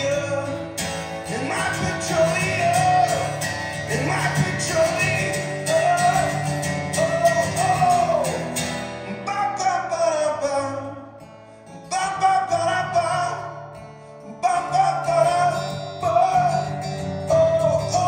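A man singing a song to his own strummed acoustic guitar, played live through a microphone. The sound dips briefly twice between sung lines about halfway through.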